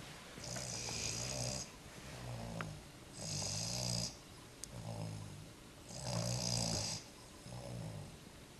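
Sleeping snoring in a steady rhythm: a low rattling snore alternating with a louder hissing breath, about three breaths in all.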